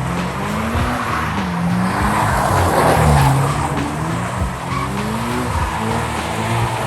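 Mazda MX-5 with a welded rear differential skidding. Its 1.6-litre four-cylinder engine revs up and down several times while the rear tyres squeal.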